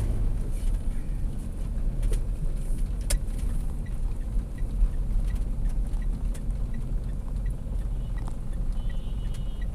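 Steady low rumble of a car's engine and tyres heard from inside the cabin while driving, with a couple of faint clicks.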